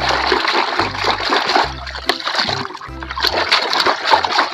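Muddy, soapy water splashing and sloshing as a plastic toy dump truck is swished and scrubbed by hand in a shallow pool. Background music with a bass line plays underneath.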